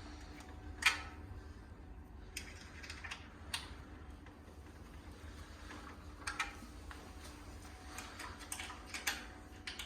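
Sparse light clicks and knocks of hand work on flat-pack cot parts as the bolts are nipped tight. One sharper knock comes about a second in, and small runs of clicks come later, over a low steady hum.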